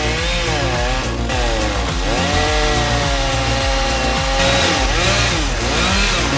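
Chainsaw running and cutting, its engine pitch dipping and rising several times as it bogs under load and revs back up, over background music with a steady low beat.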